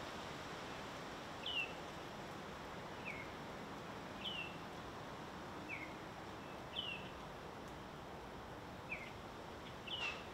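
A small songbird repeating short, high, downslurred chirps about every second and a half, some pitched a little higher than others, over a steady background hiss. A brief click comes near the end, together with one of the chirps.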